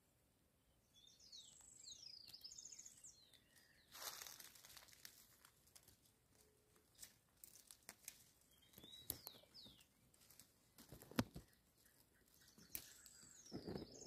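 Faint rustling and crackling of dry twigs and leaves as the brush and the flower are handled, loudest about four seconds in and again around eleven seconds, with a few quick high bird chirps near the start, around nine seconds and near the end.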